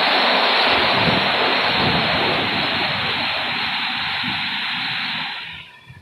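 Automatic car wash running: a loud, steady rush of water spray with the rotating brushes scrubbing the car. The noise stops fairly abruptly near the end.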